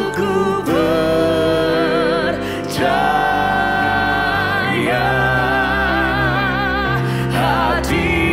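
Indonesian worship song sung by a man and a woman, with keyboard accompaniment and long held notes with vibrato.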